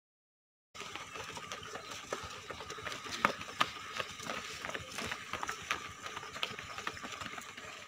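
Footsteps of several people running past on a paved road, irregular footfalls starting about a second in.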